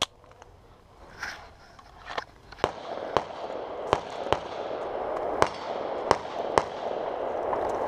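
Pistol shots: one sharp crack at the start, then about nine more spaced half a second to a second apart from about two seconds in, over a steady rushing noise that builds up after the first second.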